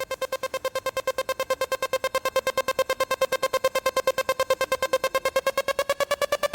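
Electronic music: a single synth tone pulsing rapidly, about ten pulses a second, steady in pitch and then beginning to rise near the end.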